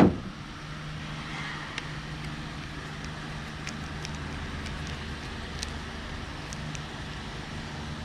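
Steady low hum of a motor vehicle engine, with a sharp knock at the very start and a few faint clicks as a screwdriver turns the green ground screw on a light switch.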